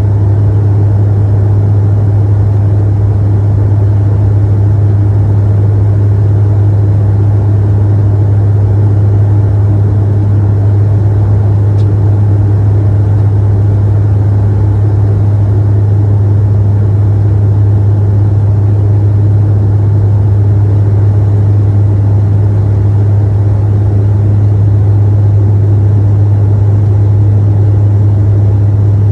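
Turboprop airliner in flight heard from inside the passenger cabin: a loud, steady propeller and engine drone built on a deep, unchanging hum.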